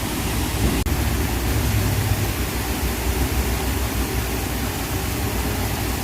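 Steady background hiss, broken for an instant about a second in.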